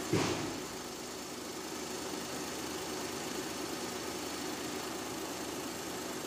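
Perodua Kelisa's small three-cylinder engine idling steadily with the air-conditioning switched on, a short knock just after the start. The AC compressor is running weak: the mechanic finds it has lost pressure, with the low side near 60 psi.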